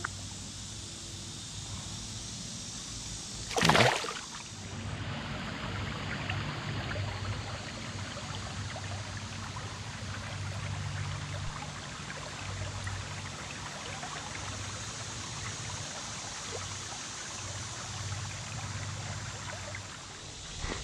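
River water trickling steadily. One brief loud noise comes about four seconds in.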